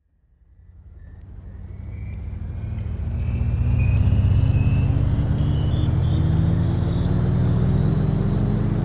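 A low, engine-like drone fades in over the first few seconds, then holds steady while its pitch slowly rises.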